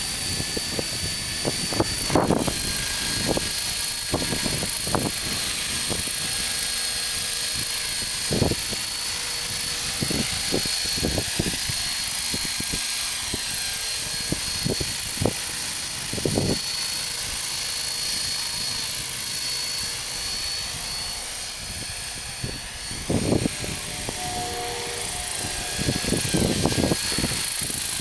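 Hurricane 500 radio-controlled model helicopter in flight, its rotor and drive giving a steady high whine as it flies and then comes down near the ground. Short low thumps come and go through it.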